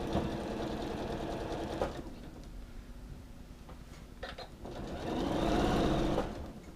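Janome sewing machine stitching a zipper: a run of about two seconds at the start, a pause, then a louder run of about a second and a half near the end.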